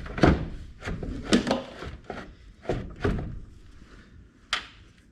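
About seven separate knocks and thunks over five seconds, the loudest near the start and the last a sharp one near the end, as hard parts and tools are handled and set down.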